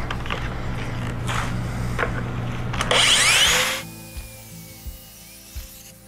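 Makita track saw cutting a half-inch strip off a plywood panel along its guide rail. It is loudest near the end of the cut and stops about four seconds in.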